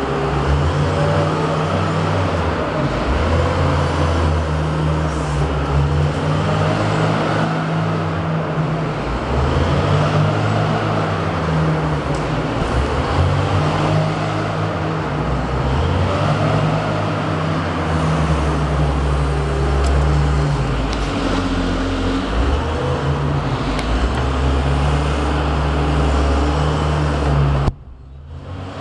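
Wheel loader's diesel engine running under load, its pitch rising and falling every few seconds as the machine drives and handles cotton bales with a bale clamp attachment. The sound drops away suddenly about a second before the end.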